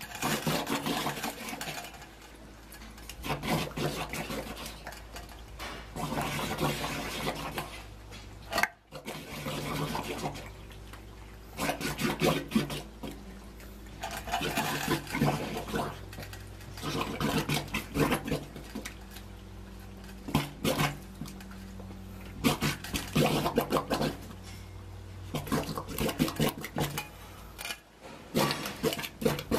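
Bubbles gurgling up through a pit of liquid manure slurry in bursts about every three seconds, from a diver breathing below the surface through an air hose, over a steady low hum.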